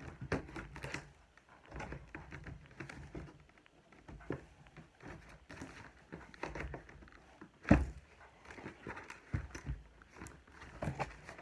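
Cardboard toy box being handled and pulled open: irregular rustling, scraping and tapping of cardboard, with one sharper knock about three-quarters of the way through.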